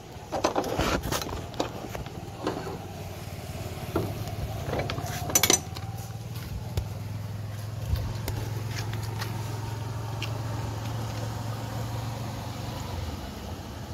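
An engine idling with a steady low hum, after scattered knocks and taps in the first six seconds.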